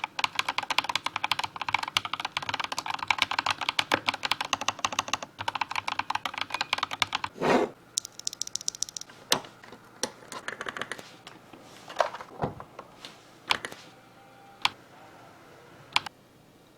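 BBOX60 mechanical keyboard being typed on: fast, continuous keystrokes for about seven and a half seconds, then one heavier thump, then scattered single key presses with gaps between them.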